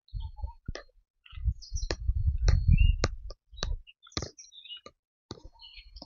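Footsteps on a dirt forest trail: a scattered run of sharp clicks and snaps, with low thuds and rumble in the middle of the stretch, and a few faint high chirps.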